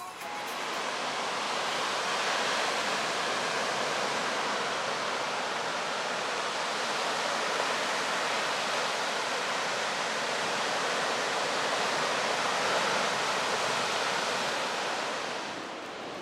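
Steady rushing of sea surf, an even hiss with no distinct breaking waves, fading near the end.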